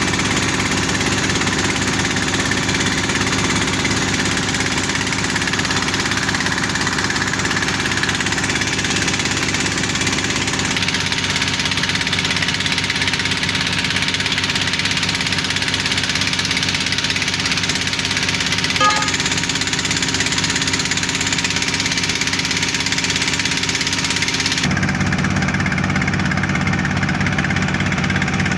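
Engine powering a small water-well drilling rig and its mud pump, running steadily. Its tone shifts abruptly twice, about 11 and 25 seconds in.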